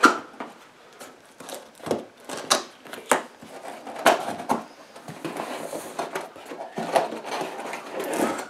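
A cardboard box being handled and opened: a run of irregular knocks, scrapes and rustles, with sharp taps right at the start and again about two and a half, three and seven seconds in.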